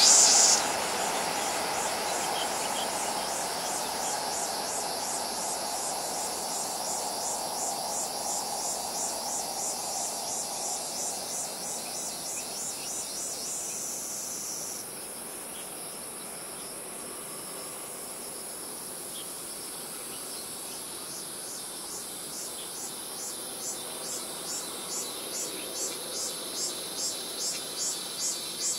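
High, rhythmic pulsing insect calls, which drop back about halfway through and swell again near the end. Under them, the rumble of a THSRC 700T high-speed train running into a tunnel dies away over the first ten seconds or so.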